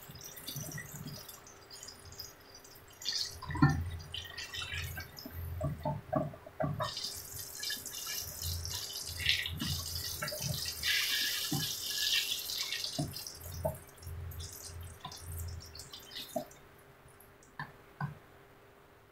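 Breaded eggplant strips deep-frying in hot oil in a wok: a crackling sizzle, with knocks and scrapes of a wooden spatula against the pan as pieces are turned and lifted out. The sizzle is loudest in the middle and dies away near the end.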